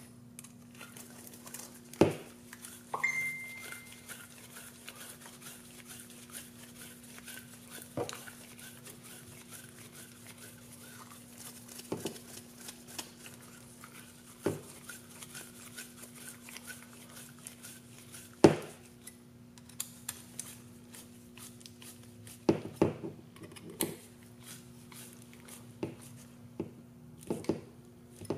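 Small hard frame parts, screws and tools clicking and knocking against each other and the table as screws are driven into a drone frame, with scattered sharp knocks a few seconds apart that come thicker near the end. A steady low hum runs underneath, and a brief high steady tone sounds about three seconds in.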